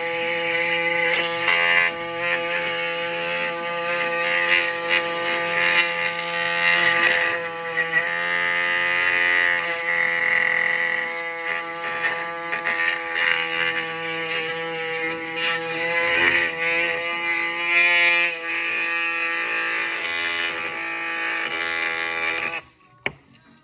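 Router running at a steady high pitch while it cuts PVC plastic sheet to trace a speaker adapter plate, with the cutting noise changing as the bit moves through the plastic. It cuts off suddenly near the end.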